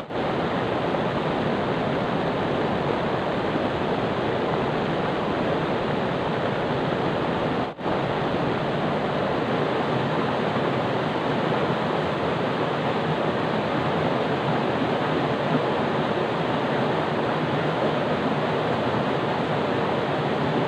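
Steady rush of flowing river water, with a brief dropout about eight seconds in.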